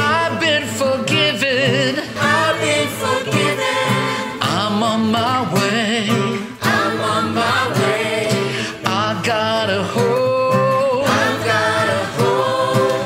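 A mixed group of men's and women's voices singing a worship song together, a small virtual choir of singers each recorded separately and mixed into one.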